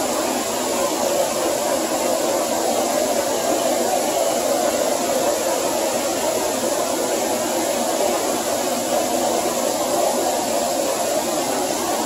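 Small waterfall on a mountain creek rushing steadily over boulders into a pool: an even, continuous rush of falling water.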